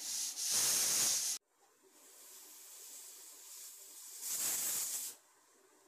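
Small aluminium stovetop pressure cooker whistling: steam hissing out past its weight valve in two bursts, each cutting off sharply, as it cooks under pressure on a gas flame.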